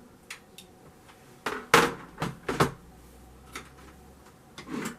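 Clicks and knocks of a computer keyboard being handled and plugged in: two light clicks, then a cluster of sharper knocks from about one and a half to nearly three seconds in, the loudest near two seconds, and a few more clicks later.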